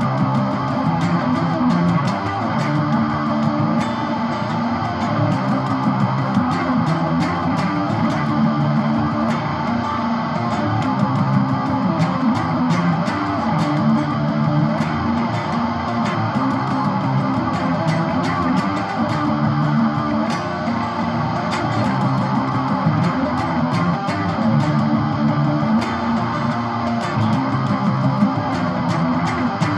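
Instrumental passage of a song with no singing: guitar playing over a bass line.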